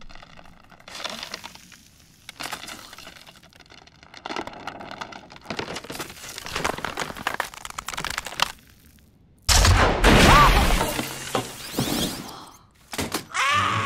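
Cartoon sound effects of a damaged plaster ceiling cracking and crumbling in scattered crackles. After a brief hush it gives way with a sudden loud crash that goes on for about two seconds.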